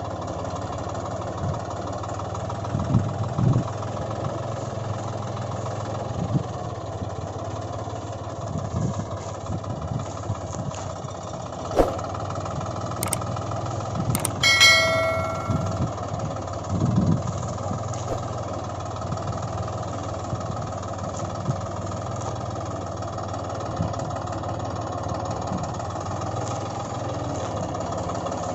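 Tractor engine running steadily at idle, with a few short knocks and a brief ringing tone about halfway through.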